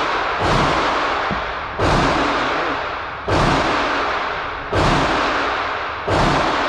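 Five gunshots fired at a steady pace, about one every second and a half, each a sharp crack followed by a long echoing decay.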